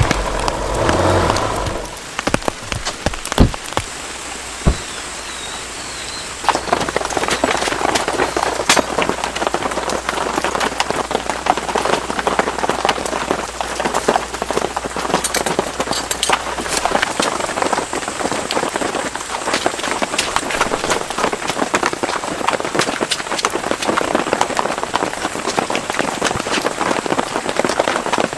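Steady rain pattering densely on surfaces, thickening about six seconds in, with a few sharp knocks in the first seconds.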